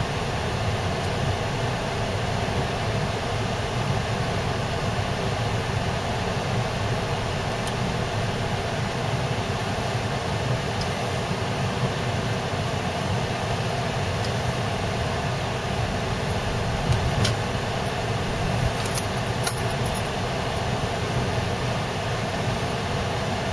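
Steady road noise heard inside a moving car: engine and tyres running on a wet, snow-covered street. A few light ticks come about three-quarters of the way through.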